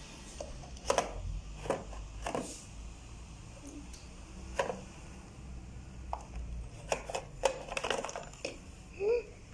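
Pink plastic dispenser dial of a Capsule Chix gumball-machine-style toy box being turned by hand, giving irregular clicks and knocks as it works the capsule ball loose, with a brief pitched sound near the end.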